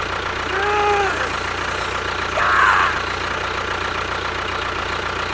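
A small motor running steadily with a low hum, with a short voice-like cry about a second in and a brief rasping burst about halfway through.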